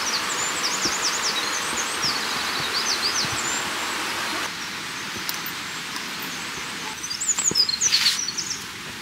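Songbirds singing quick, high chirps and trills, again and again, over a steady hiss. The hiss drops about halfway through, and near the end there are a few louder rustling, crunching steps.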